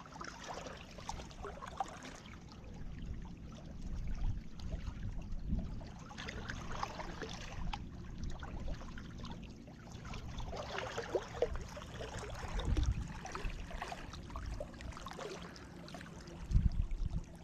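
Lake water lapping and trickling at the shoreline, with a low, uneven rumble of wind on the microphone and faint scattered ticks.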